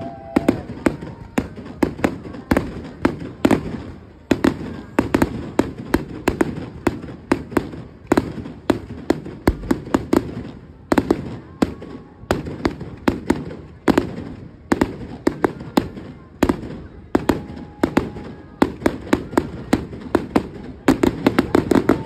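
Fireworks display: a rapid, continuous barrage of sharp bangs and crackles, several a second, with a few brief lulls.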